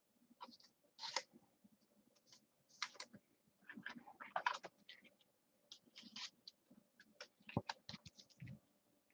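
Faint scattered clicks and scratches of trading cards being handled and slipped into a clear hard plastic card holder, coming in short clusters.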